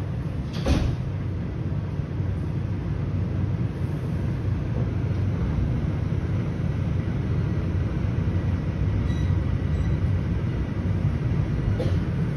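Toronto Rocket subway train heard from inside the car as it pulls out of the station: a steady low rumble of wheels and motors that grows slowly louder, with a single sharp knock about a second in.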